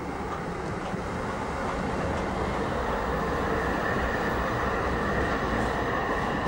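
Düwag Type L tram, a motor car with trailer, rolling past at close range: a steady rumble of wheels on the rails that grows louder over the first couple of seconds.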